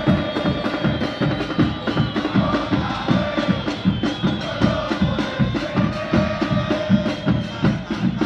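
Football supporters' band pounding bombos (big bass drums) in a fast, steady beat of about four strokes a second, with a sustained melody carried over the drumming.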